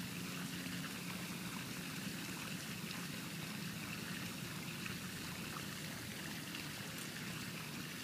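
Hot tub jets churning the water: a steady rush of bubbling water.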